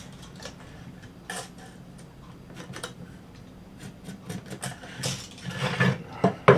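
Scattered light clicks and taps of tools and wood pieces being handled on a workbench while marking out lumber, with a few louder knocks and a sharp click near the end, over a faint steady hum.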